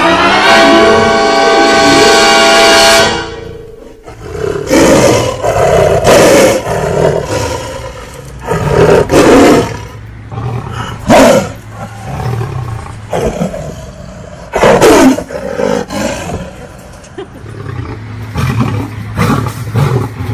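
Lion roar sound effects, a string of separate roars, several sliding down in pitch, over background music. The first three seconds are a loud held musical chord.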